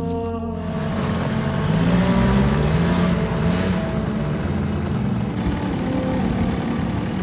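Motor vehicle engine running and revving, its pitch rising and falling several times over a dense rushing noise.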